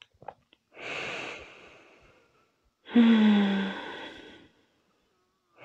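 A woman's deep in-breath, then a long sighing out-breath that starts voiced and trails off into breath. A few faint lip clicks come just before.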